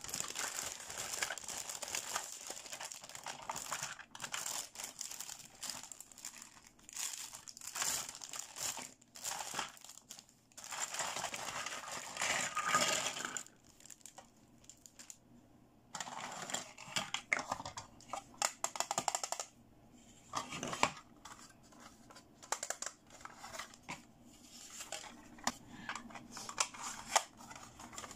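Thin plastic packaging crinkling and tearing as miniature plastic toy pieces are unwrapped, in a dense crackle for the first half. After a short lull, scattered sharp clicks and taps of small hard plastic toy parts being handled and set down on a table.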